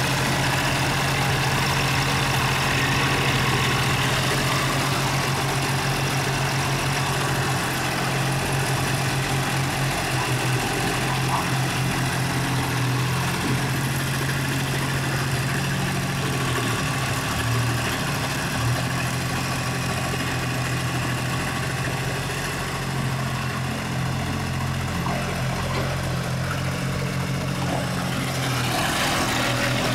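Mini excavator's small diesel engine running steadily while the machine crawls and digs, its pitch shifting a little around the middle.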